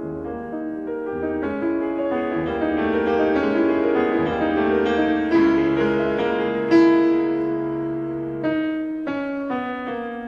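Piano music on the soundtrack: sustained, overlapping notes that build in loudness toward the middle, with a strongly struck note a little before seven seconds in, then slowly fade.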